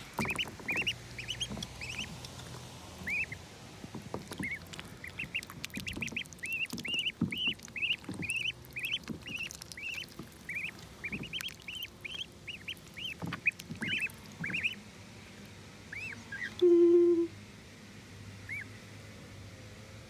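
Pekin ducklings peeping, a fast run of short chirps that thins out to a few near the end, with light splashing of water. One brief, louder low tone sounds about three-quarters of the way through.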